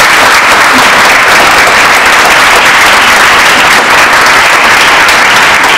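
Audience applause at the close of a talk: a large room of people clapping, dense, steady and loud.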